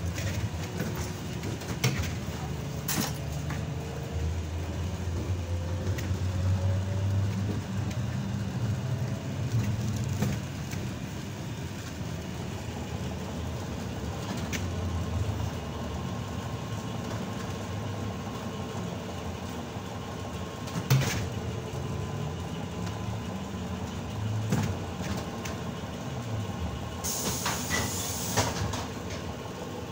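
ZiU-682G trolleybus running on the route, heard on board: a low rumble that swells and eases, with a rising whine about five seconds in as it pulls away. A few sharp knocks, and a short hiss near the end.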